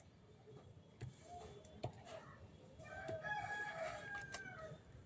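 Faint bird calls: thin high chirps near the start, then a drawn-out pitched call of about two seconds past the middle, with a couple of soft clicks between them.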